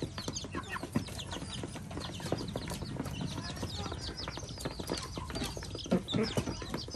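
A feeding flock of ducklings, chicks and hens: a constant chorus of many short, high peeps from the young birds, with hens clucking among them.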